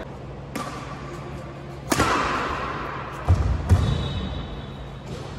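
Badminton racket hitting a shuttlecock, the strikes echoing in a large indoor hall: a light hit about half a second in, then a sharp, loud hit just before two seconds in that rings on. Two low thumps follow over a second later.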